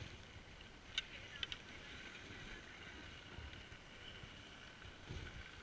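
Faint open-air ski-slope ambience with a few light clicks from the pole-mounted action camera being handled, two sharp ones about a second in and a soft knock near the end.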